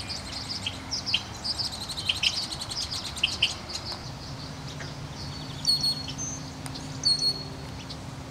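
Songbirds calling: a run of quick high chirps, a buzzy trill about two seconds in, and two short sharp whistles later on. A faint low hum comes in about halfway through.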